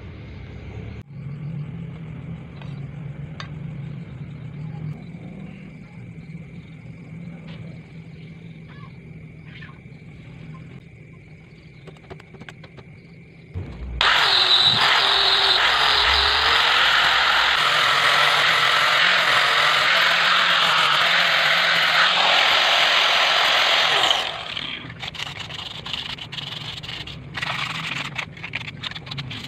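Angle grinder with a flap disc running steadily for about ten seconds, starting about halfway in and cutting off abruptly. Before it there is only a faint background with a thin steady high tone. After it come short irregular scraping strokes of sanding by hand.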